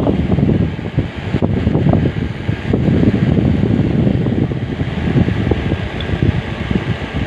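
Loud, uneven low rumble of moving air buffeting the microphone, as from a fan's draught, with a couple of faint clicks from the adjustable wrench handled against the brass ball valve.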